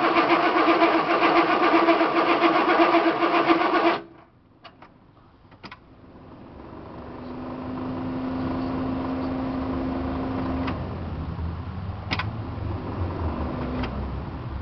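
Chevrolet 6.2 diesel being cranked by its starter without firing, in deep cold with its glow plugs not heating; the cranking stops suddenly about four seconds in. A few sharp clicks follow, then a quieter steady noise.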